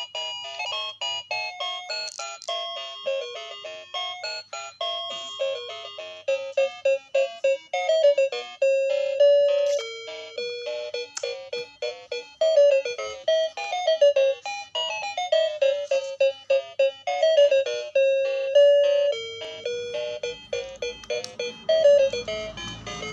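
Music: a quick, chiming melody of bell-like notes, several per second, each ringing briefly and fading.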